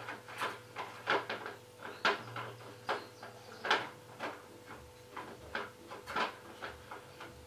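A dozen or so irregular light knocks and clinks as objects are moved and set down on a metal wire dish rack.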